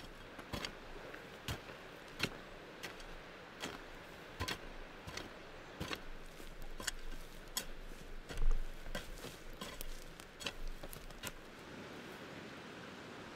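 A rhino trenching tool chopping and scraping into the dirt and roots around the base of a stump: a run of irregular sharp knocks, about one a second, with one heavier thump about eight seconds in. The strikes stop about eleven seconds in.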